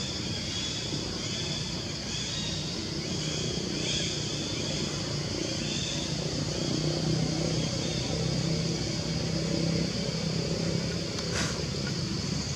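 Motor vehicle engine running nearby as a low rumble that swells in the middle and eases off, over a steady high-pitched buzz. A single sharp click comes near the end.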